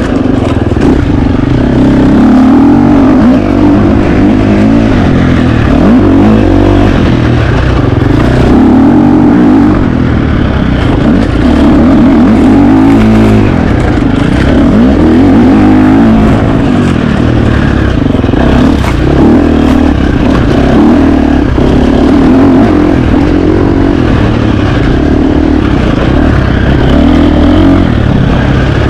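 2025 KTM 350 XC-F single-cylinder four-stroke dirt bike engine at race pace, revs rising and falling every second or two as the throttle opens and closes. Scattered clatter and knocks from the bike working over rough ground.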